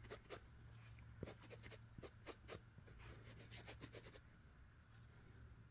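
Faint scratchy rubbing of a dry sponge over a leather-hard clay bowl, knocking loose the crumbs of clay left along freshly carved design lines. The strokes come quickly for about four seconds, then thin out.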